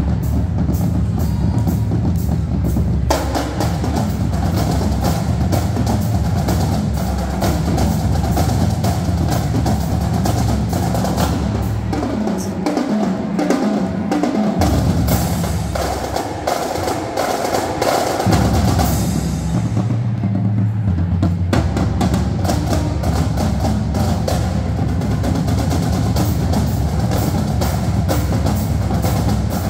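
School marching drumline playing: snare drums, tenor drums, marching bass drums and crash cymbals in dense, fast rhythms. The low drum sound drops away for a few seconds around the middle, then comes back.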